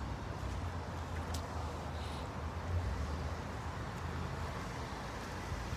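Steady low outdoor background rumble with no distinct event in it.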